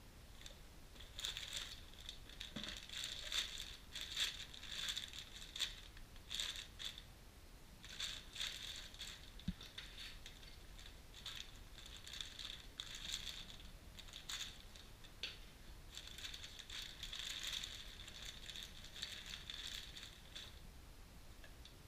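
A clear plastic bag crinkling as hands pull it from a small parts box and handle the rubber steering rack boots inside, with some cardboard rustling. It comes in three spells of handling with short pauses between.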